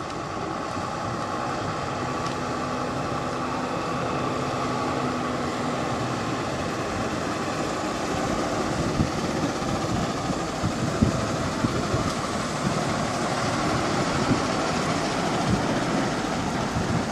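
Mitsubishi Fuso Fighter medium-duty truck's diesel engine running as the truck drives slowly past at low speed, growing a little louder as it comes closer.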